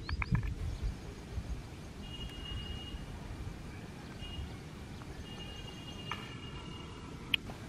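Rural outdoor ambience with a low wind rumble and birds calling: a quick chattering run of clicks at the start, then thin, high whistled notes held about a second each, several times. A single sharp tick comes near the end.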